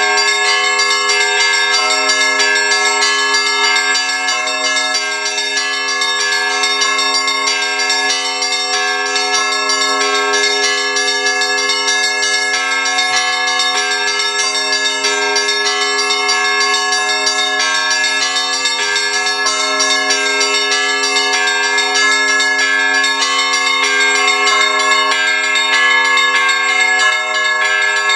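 Orthodox church bells of a belfry being rung together in a continuous peal, many bells struck over and over with no pause. These are newly consecrated bells, sounding as one harmonious set.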